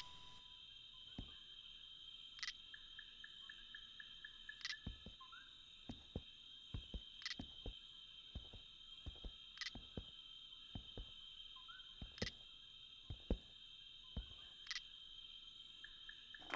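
Night insect chorus: a steady high-pitched drone, with a sharp chirp about every two and a half seconds. Scattered soft thumps of footsteps on a wooden platform sound underneath.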